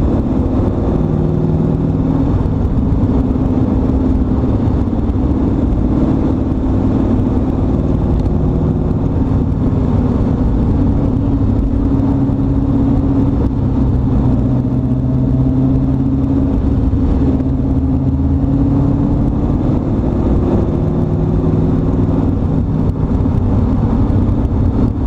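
Turbocharged GM LS1 5.7-litre V8 of an AC Cobra-style roadster running at a steady cruise, its pitch drifting gently up and down with small changes in speed. It is heard from inside the open cockpit over a continuous low rumble.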